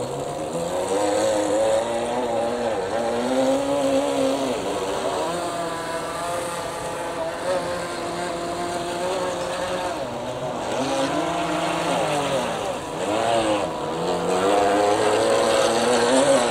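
Heng Long Atlantic Yacht RC boat running at speed on its twin electric motors and propellers: a steady motor whine that rises and falls in pitch several times as the boat speeds and turns.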